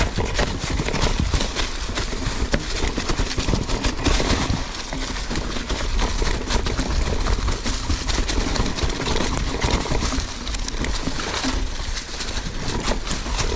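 Mountain bike riding over rough, rocky trail: tyres crunching and the bike rattling with a continuous run of small knocks, over a steady low wind rumble on the camera microphone.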